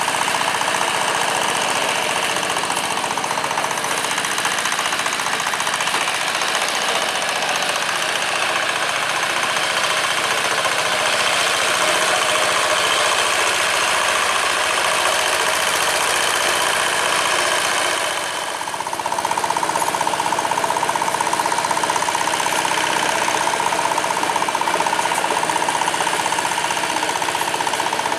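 Single-cylinder diesel engine of a two-wheel walk-behind hand tractor running steadily under load as it churns through paddy mud, a fast even clatter. Its sound dips briefly about two-thirds of the way in.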